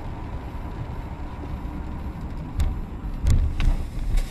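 Road and engine rumble of a moving car heard from its dashboard camera, with several sharp clicks and heavy low thumps in the second half.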